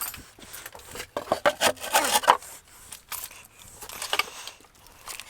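Irregular scraping and rubbing of tools against the fork parts, with a few sharp knocks.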